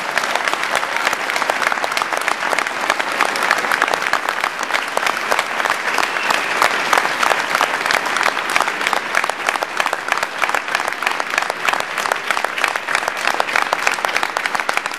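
A crowd applauding: dense, steady clapping from many hands that carries on throughout.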